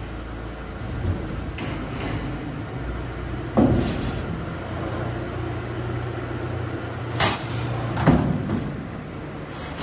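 CNC sheet-metal panel bender (folding center) working: a steady machine hum broken by several sharp knocks as the tooling moves and folds the sheet, the loudest about three and a half seconds in and two more close together near the end.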